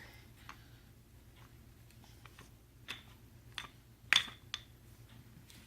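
Scattered light clicks and taps of plastic toy bricks being handled, about seven in all, the loudest a little past the middle, over a faint low hum.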